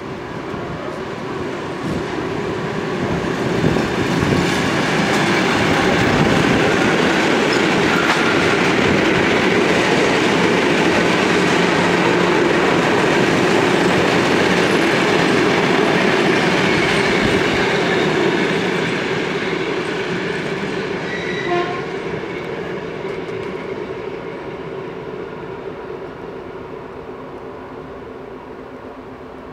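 ED9M electric multiple unit running past on the rails. It grows louder as it approaches, is loudest for about twelve seconds while the carriages go by, then fades steadily as it draws away.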